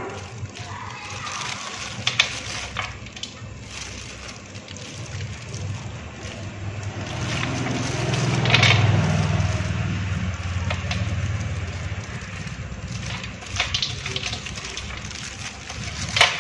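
A plastic-gloved hand scooping and rustling dressed pennywort leaves around a stainless steel bowl, with the crackle of the glove and a few sharp clicks against the metal. A steady low hum runs underneath and swells about halfway through.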